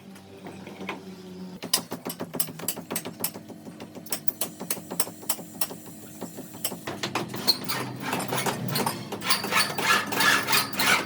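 Rapid mechanical clicking, several clicks a second, over a steady hum, busier and louder in the last few seconds.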